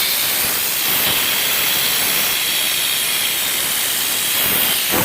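Compressed air blowing A/C flush through a car's air-conditioning condenser and line: a loud, steady hiss. It is part of flushing out the system after a blown compressor.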